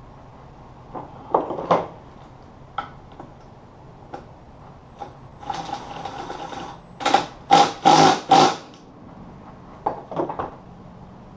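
Metal tools and transmission parts clinking and knocking on a workbench. There is a busier rattling stretch about halfway through, then several loud, sharp knocks just after it.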